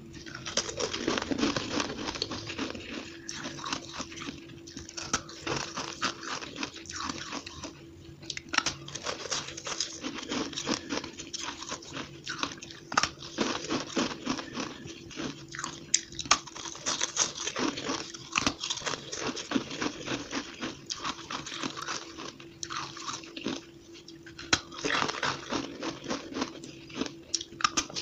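Close-up crunching and chewing of bites of fluffy, frosty ice, many crunches in quick irregular succession, sped up to double speed. A faint steady hum runs underneath.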